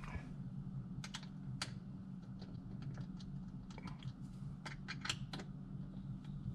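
Irregular light clicks and taps of a mirror clamp bracket and its small bolt and nut being handled and fitted by hand onto a UTV roll bar, the sharpest click about five seconds in, over a steady low hum.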